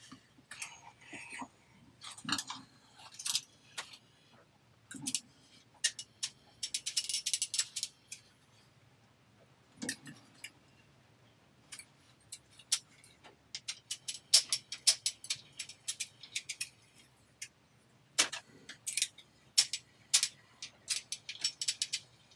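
Light metal clicks and clinks from a silverware spring-hinge bracelet being bent and worked by hand. The clicks are irregular, with a dense jingling run about seven seconds in and a few duller knocks in between.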